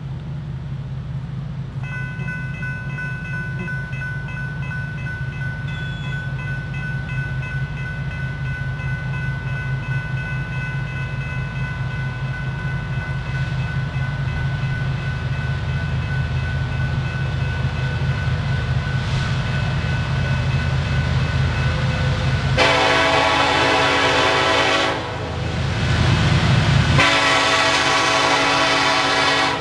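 An approaching diesel freight train, its low engine rumble growing steadily louder, while a grade-crossing warning bell rings from about two seconds in. Near the end the lead locomotive, a BNSF SD70ACe, sounds two long horn blasts for the crossing.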